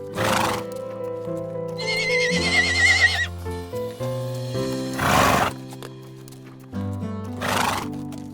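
A horse whinnying once, a quavering call that wavers and drops at its end, about two seconds in, over background music with sustained chords. Three short breathy bursts come at the start, about five seconds in and near the end.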